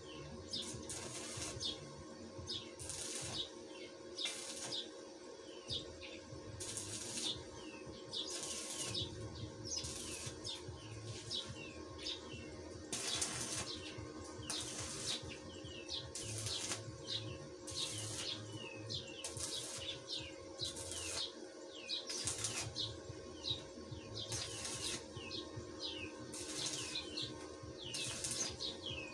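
Stick (arc) welder crackling in repeated short bursts as joints of steel tubing on a window grill are welded, each burst lasting about half a second to a second, over a steady low hum.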